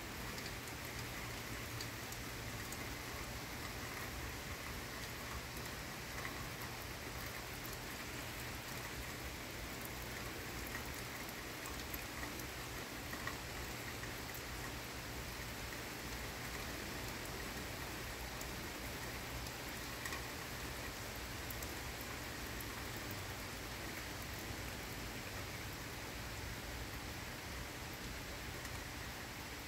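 Heavy rain falling steadily during a thunderstorm, with scattered drops ticking close by.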